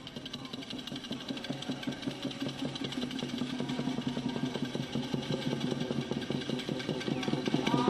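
Wooden matraca, the Holy Week clapper rattle, clattering in a fast, even stream of knocks, growing steadily louder.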